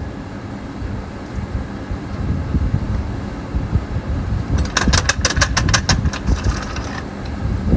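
Steady low vehicle rumble, with a quick run of about ten sharp metallic clicks about five seconds in as the car jack is lowered.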